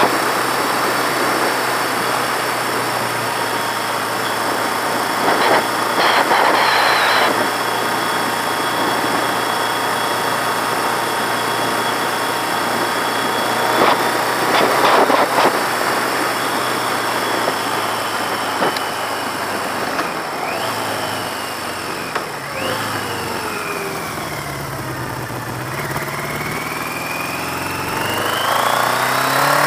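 1982 Yamaha XJ650's air-cooled inline-four engine running under way, with wind rushing over the microphone and two short louder gusts. Past the middle the engine note falls as the bike slows, then rises again near the end as it accelerates.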